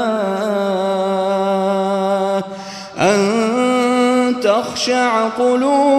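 A male voice chanting the Quran in melodic tajweed style, drawing out long held notes that bend slowly in pitch. There is a brief pause for breath about two and a half seconds in, then a new held phrase.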